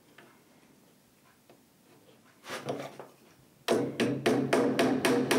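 Small hammer tapping pins into the wooden frame of a model boat: a few soft knocks, then about three and a half seconds in a steady quick run of sharp ringing taps, about four a second.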